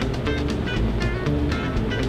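Background music: a run of notes struck about three times a second over a steady low bass line.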